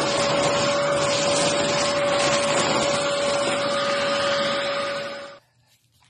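Vacuum cleaner running steadily with a steady whine as its wand sucks up shredded paper, then cutting out a little over five seconds in.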